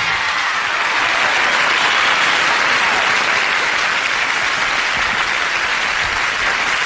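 Studio audience applauding and cheering at the end of a rock and roll number, a dense, steady wash of clapping.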